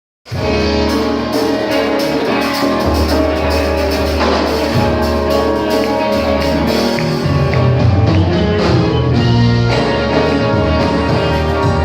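A band playing live: drum kit, a strong bass line and guitar, starting abruptly a moment in and going on steadily.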